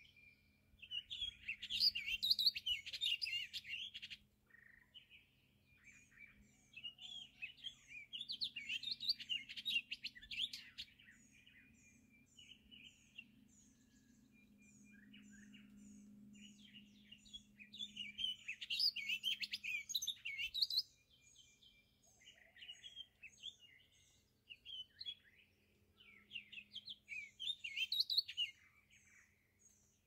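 Songbirds singing at sunrise. Four loud bouts of rapid warbled song stand out over a steady run of short high repeated notes, about two or three a second, from another bird. A faint low hum swells up and fades away in the middle.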